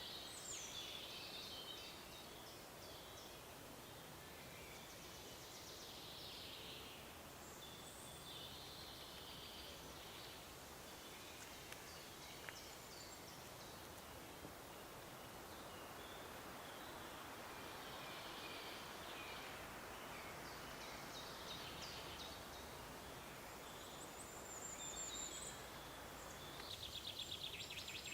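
Songbirds singing on and off in a forest, short phrases from more than one bird over a faint, even background hiss, with a fast trill near the end.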